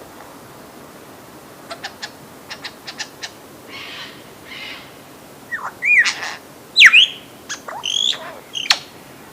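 Lyrebird singing: a run of quick sharp clicks, then loud whistled notes that sweep up and down in pitch in the second half.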